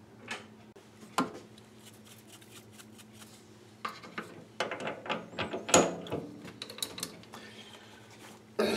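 Steel tools and lathe fittings being handled and set down: scattered metallic clicks and clanks, a couple at first, then a busy run of knocks and rattles from about four seconds in. A faint steady hum sits underneath.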